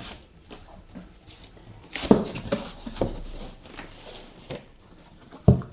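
Cardboard shipping box being opened by hand, its flaps scraping and rustling as they are folded back, with a sharp thump near the end.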